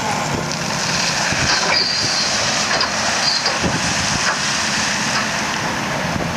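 Sennebogen 6140E HD dragline crane at work: its Cat C27 V12 diesel running steadily, with clanking and brief high metallic squeals about two and three seconds in as the dragline bucket swings on its ropes.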